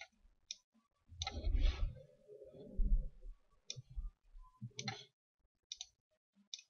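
Computer mouse clicking several times, short sharp clicks spread a second or so apart. There are also two louder low, dull rumbles or bumps about one and three seconds in.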